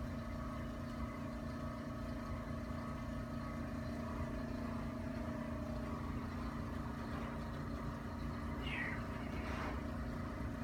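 Steady low room hum with a few constant tones, holding level throughout, and a couple of faint brief sounds near the end. No adjustment crack or pop stands out.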